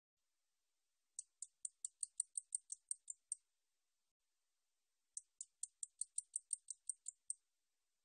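Song of the 날베짱이 katydid: two phrases of about a dozen short, high-pitched ticks each, roughly five or six a second. The first starts about a second in and the second about five seconds in, each lasting about two seconds.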